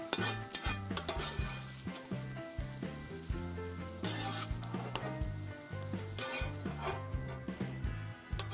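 Hot lard sizzling in a cast-iron frying pan as a metal spatula scrapes fried champignon mushrooms across the pan bottom, with repeated short scrapes and knocks.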